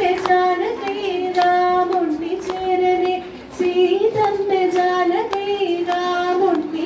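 A high voice singing a devotional melody in long held, gliding notes, with sharp clicks keeping time about twice a second.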